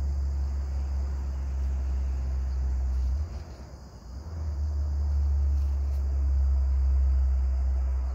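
Steady low rumble that drops away briefly about three seconds in, over insects chirring faintly.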